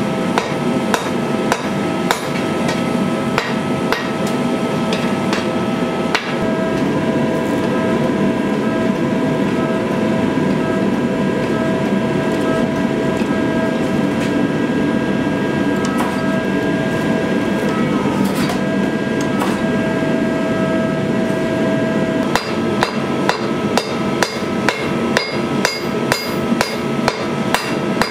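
Hand hammer striking a red-hot sword blade on a steel anvil, ringing blows at about two to three a second. The hammering stops after about six seconds while the forge runs with a steady hum as the blade reheats, then resumes near the end, faster and denser.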